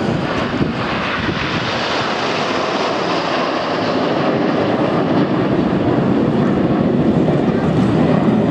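Display aircraft's engine noise, a steady rushing drone that builds gradually louder as it approaches.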